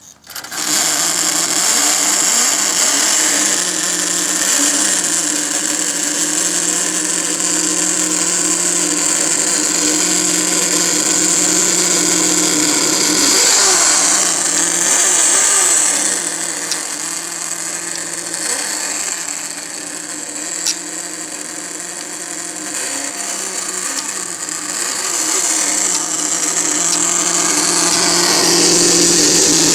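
Brushless electric motor of a Traxxas Slash 4x4 RC truck whining at high revs, starting abruptly, its pitch wavering up and down with the throttle. It eases off somewhat through the middle and comes back louder near the end.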